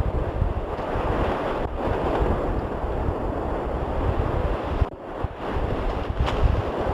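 Wind buffeting the microphone in gusts over a steady rushing roar, with a brief drop in level about five seconds in.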